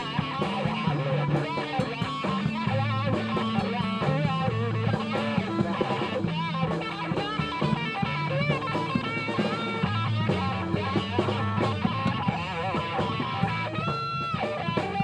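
Electric guitar playing a blues-rock lead full of bent notes over a steady bass line.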